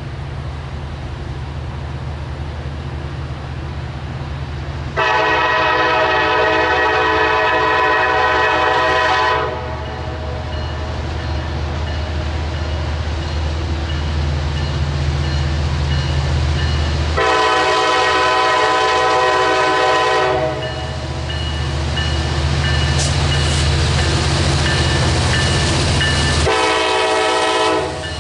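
Diesel locomotive running with a low engine drone while its multi-tone horn sounds three blasts: two long ones, then a short one near the end. This is the long-long-short opening of a grade-crossing signal.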